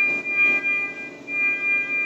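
Electronic alarm from NICU medical equipment: a steady high beep held for about a second at a time, with short breaks between.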